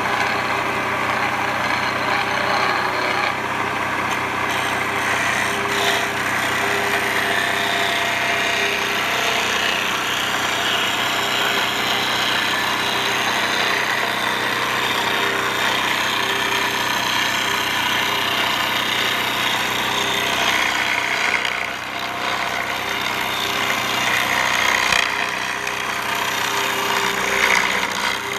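Homemade wood lathe running steadily, its motor humming while a turning tool scrapes the spinning wood.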